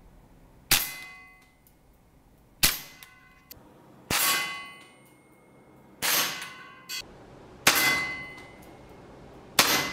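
Tokyo Marui Sentinel Nine gas blowback airsoft pistol (a custom SIG P226) firing six slow, aimed shots, about one every one and a half to two seconds. Each shot is a sharp crack with the slide cycling, followed by a metallic ring that dies away.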